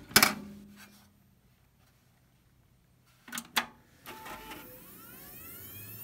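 A sharp click and thump as the HP desktop PC is switched on, then two more clicks a few seconds later. Near the end the machine powers up with a steady running noise and a whine rising in pitch as the fans and the healthy hard drive spin up.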